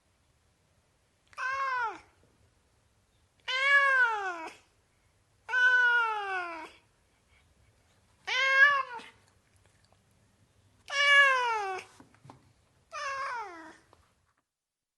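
Domestic cat meowing six times, about two seconds apart; each meow lasts under a second to about a second and rises slightly, then falls in pitch.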